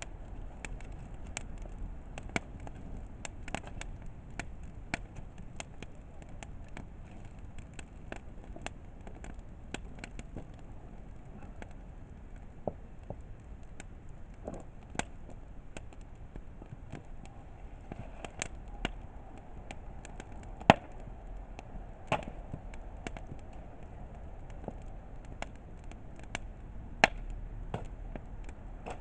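Wood campfire crackling: irregular snaps and pops over a low steady hiss, with two much sharper pops late on.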